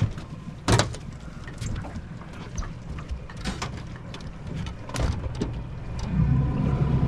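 Sharp knocks and clatter in a small boat while a mud crab pot is hauled in, over a low steady rumble that grows louder near the end.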